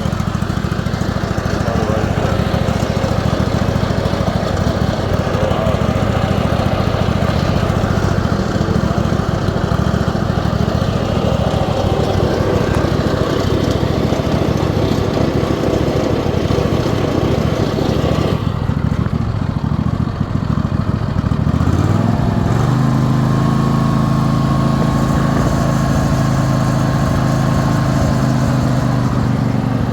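Riding lawn mower's 22-horsepower engine running steadily. About three-quarters of the way through, its pitch rises and settles into a steadier, higher hum as the engine speeds up.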